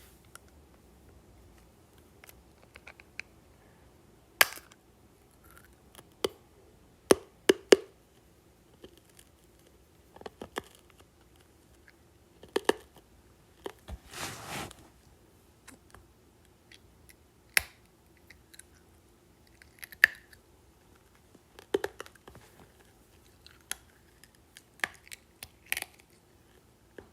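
Close-up eating of hard candy and gummies: irregular sharp crunches and bites every second or two, with a longer noisy crunching stretch about halfway through.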